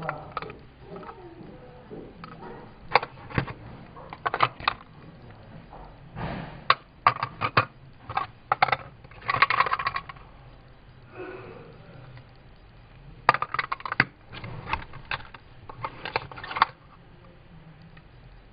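Clear acrylic eyelash cases clicking and clacking against each other as they are picked up and handled, in irregular clusters of sharp knocks with a dense rattling run about nine seconds in.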